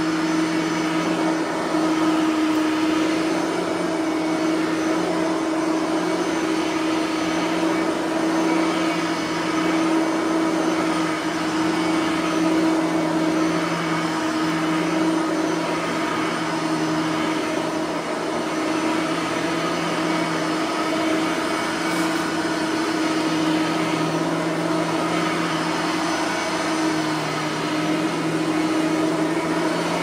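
Bissell 3510 bagged upright vacuum cleaner with its 9-amp motor running on carpet, a steady motor whine with the brush roller spinning. The brush roller bearings are freshly greased, so there is no scraping.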